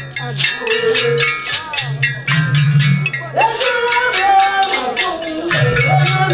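Live traditional dance-troupe music: fast, even percussion strokes, about five a second, over a low humming drone that comes and goes, with voices singing.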